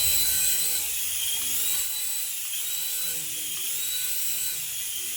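Small electric motor of a remote-control toy running with a high whine that swells up and falls back in pitch about once a second.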